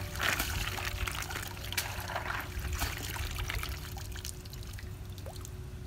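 River water draining and trickling out of a woven basket of snails as it is lifted from the water. The sound is strongest in the first couple of seconds and tapers off, with a few small clicks.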